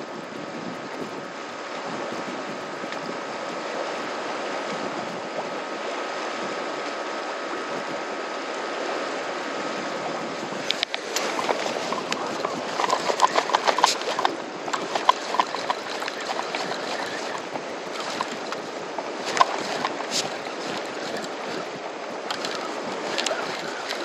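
Sea water washing against a concrete breakwater, with wind. About eleven seconds in, a run of sharp clicks and rapid ticking begins as the fishing rod and reel are handled, densest for a few seconds and then scattered.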